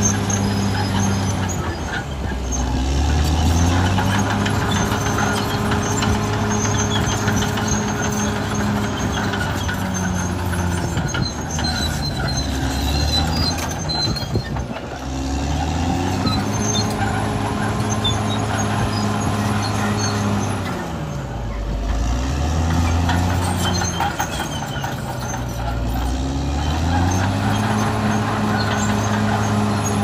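Caterpillar D6R XL bulldozer's diesel engine running hard. Its note drops and climbs back about four times, a little after the start, around the middle, about two-thirds through and near the end.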